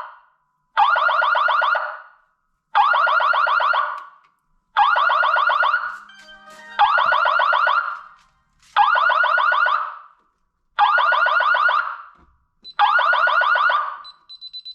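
Fire alarm horns sounding in long, even blasts: seven blasts of about a second each, one every two seconds. The alarm is set off by a thermostat wired into the fire alarm system as a test switch.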